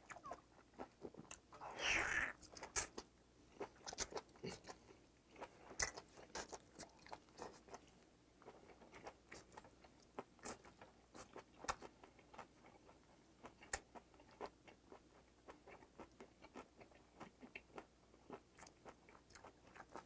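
Close mouth sounds of chewing boiled octopus tentacle: a run of faint wet clicks and smacks, with one louder, longer bite-and-suck noise about two seconds in.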